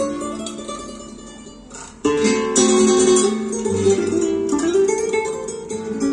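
Recorded music led by a plucked string instrument, played through floor-standing hi-fi loudspeakers driven by a vintage Woodstock amplifier. The music fades down over the first two seconds, then comes back in suddenly and loudly.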